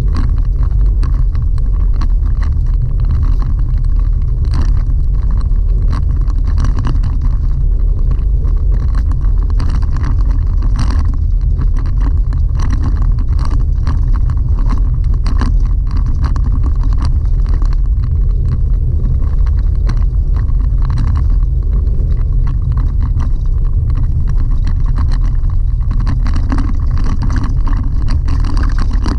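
Chevy Colorado ZR2 pickup driving on a dirt-and-gravel road, heard inside the cab: a steady, loud low rumble of tyres and running gear, with frequent small clicks and rattles throughout.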